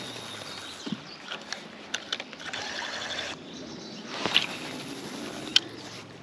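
Steady rush of river water along a gravel bank. Scattered sharp clicks and knocks come from handling a spinning rod and reel, the loudest about four seconds in and again near the end.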